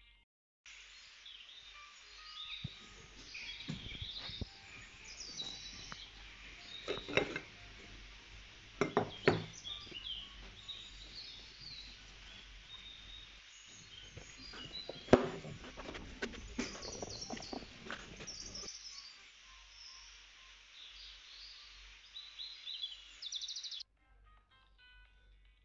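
Birds chirping in the background, with occasional knocks and thuds from gloved hands kneading soft dough in a glass bowl. The sound starts just under a second in and cuts off about two seconds before the end.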